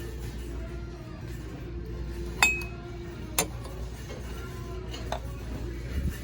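Dishware clinking as it is handled on a shelf: three sharp clinks, the first and loudest about two and a half seconds in with a brief ring.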